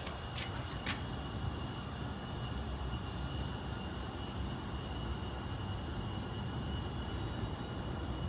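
A steady low rumble with a faint, high, steady whine, after a few sharp clicks in the first second.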